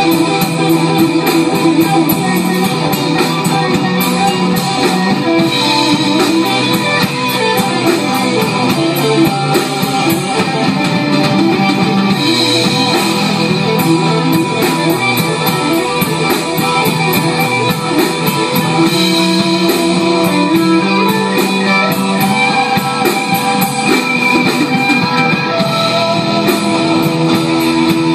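Live instrumental rock jam: electric guitar playing over bass guitar and a drum kit, steady and loud throughout.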